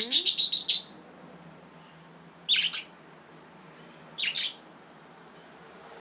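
Pet budgerigars chirping in three short bursts: a quick string of chirps at the start, then two shorter bursts about two and a half and four seconds in.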